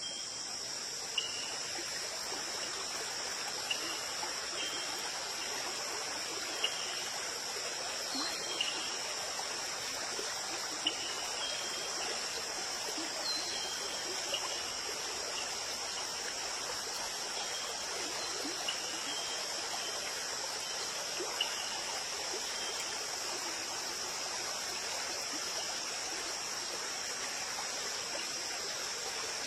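Running stream of water trickling and flowing steadily, under a continuous high trill of crickets, with scattered short chirps over the top.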